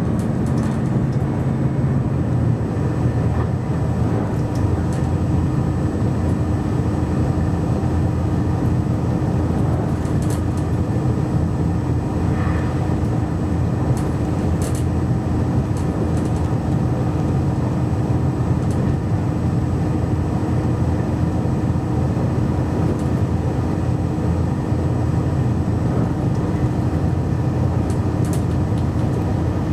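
Steady cabin noise inside a JR Shikoku 2700 series diesel railcar running at speed: the engine's hum over the low rumble of the wheels on the rails, with a few faint ticks.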